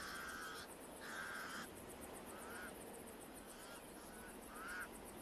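Pied crows calling: a run of about six harsh caws, two longer ones in the first two seconds and shorter ones after.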